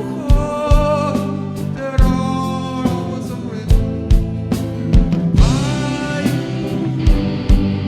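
A live band rehearsing a song: a singer holds drawn-out, wavering notes over electric guitar and a steady drum beat.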